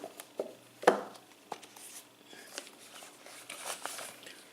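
Handling noise from a Blu-ray box set being taken apart: scattered clicks and short rustles, with one sharp knock about a second in.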